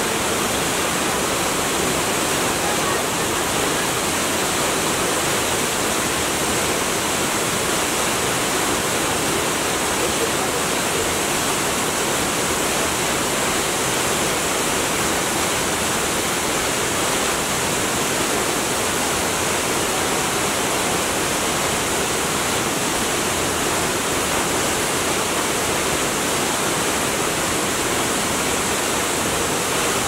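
Tall, narrow waterfall plunging down a rock cliff into a plunge pool: a steady, unbroken rush of falling water.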